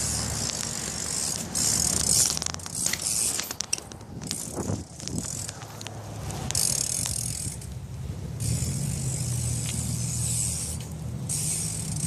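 BMX bike being ridden: the rear hub's ratchet clicking as the rider coasts, tyres rolling on pavement, and a few sharp clicks and knocks.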